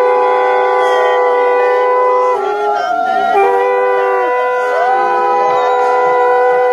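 Several conch shells (shankha) blown together for arati in long, loud held notes at slightly different pitches. The notes sag and break off about a third of the way in, then start again.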